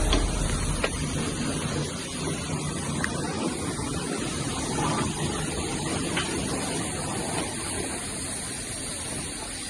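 Pressure-washer lance spraying water onto a foam-covered motorcycle: a steady rushing hiss of spray.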